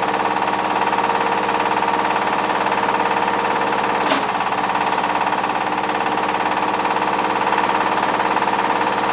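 Engine-driven hammer mill running steadily while grinding dry spruce and hemlock bark into fine sawdust, with one sharp crack about four seconds in.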